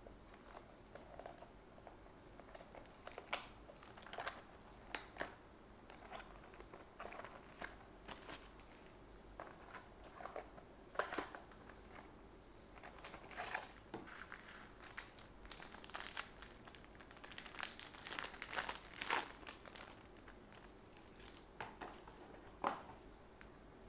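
Crinkling and tearing of a trading-card booster box's plastic wrapping and foil booster pack as they are opened by hand, in irregular short rustles that come thickest a little past the middle.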